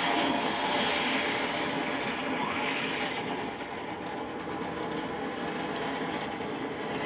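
Steady loud rushing roar of rocket engines at launch, easing slightly after about three seconds.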